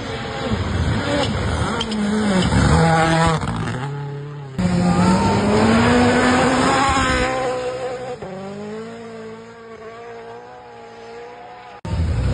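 Rally cars on a gravel stage, turbocharged engines revving hard and dropping between gear changes as they pass. The engine sound breaks off abruptly about four and a half seconds in and again near the end, where one pass cuts to the next.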